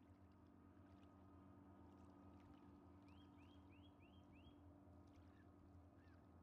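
Near silence: a faint steady low drone, with a small bird's run of five quick rising chirps about three seconds in and a couple of single high calls after it.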